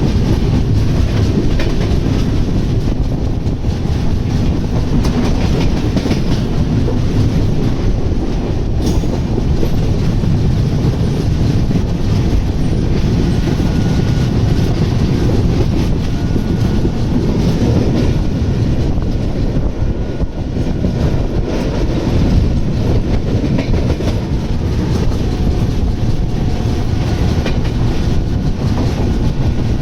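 Express passenger train running through at speed, a loud, steady rail rumble with faint thin whines from the wheels at times.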